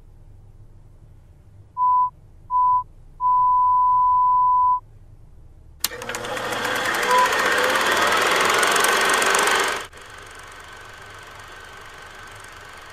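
Three electronic beeps at one steady pitch, two short and one long, over a low hum; then a click and a noisy rushing sound that swells and cuts off suddenly, leaving a steady low rumble.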